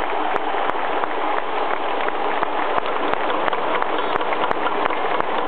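Large stadium crowd applauding: a dense, steady patter of clapping with individual sharp claps standing out over the general noise of the crowd.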